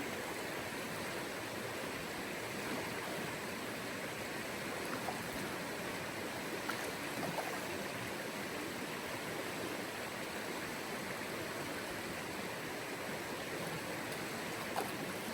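Back-country river water flowing steadily over stones, an even rushing.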